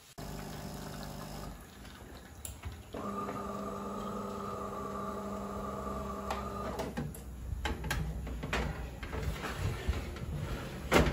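Fan oven humming steadily, the hum stopping about seven seconds in, then a few clacks and scrapes of a metal baking tray being slid onto the oven rack, with a sharp metal knock near the end.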